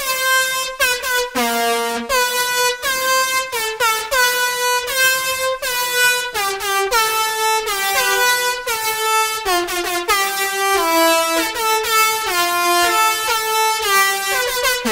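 Instrumental electronic music with no vocals: a bright synthesized lead plays a quick melody of short, evenly spaced notes, each note scooping up into its pitch, sinking stepwise through the middle and climbing again near the end.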